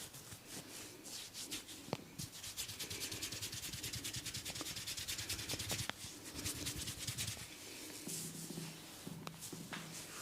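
Fingers scratching and rubbing vigorously through hair and scalp during a head massage. The strokes are rapid and dry, busiest in the middle, with a few sharp clicks.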